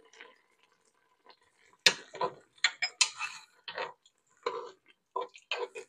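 A metal spoon clinking against the side of a stainless steel pot while stirring, a run of irregular knocks starting about two seconds in.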